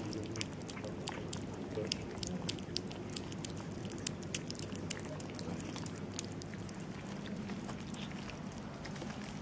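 Cats chewing and lapping wet cat food at close range: a quick, irregular run of wet smacking and chewing clicks over a steady low background rumble.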